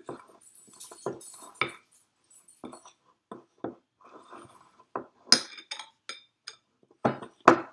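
A large spoon stirring a clumpy flour, salt and water Play-Doh mixture in a mixing bowl, clinking and knocking against the bowl in irregular strokes. The sharpest clinks come about five seconds in and near the end.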